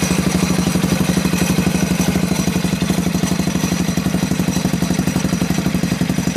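Swissauto 250 engine idling steadily, a rapid, even pulsing exhaust beat that holds the same speed throughout.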